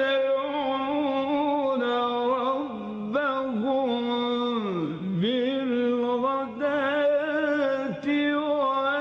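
Male Quran reciter's voice in melodic, mujawwad-style recitation, drawing out long ornamented notes with a wavering vibrato. About halfway through the line glides down low and climbs back up before settling into another long held note.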